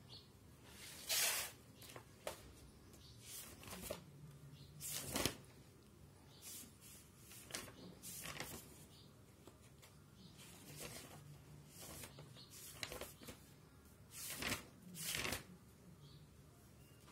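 Paper and handling noise on a workbook page: short, scattered rustles and scrapes, the loudest about a second in, about five seconds in and twice near the end, over a faint steady hum.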